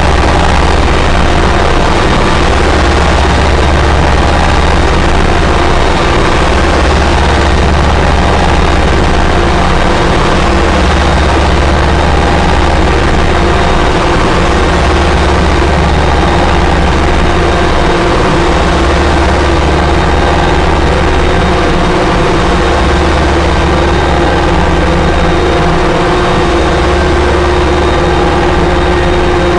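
Harsh noise and drone music: a loud, unbroken wall of distorted noise over sustained droning tones, with a deep low hum that briefly drops out every few seconds.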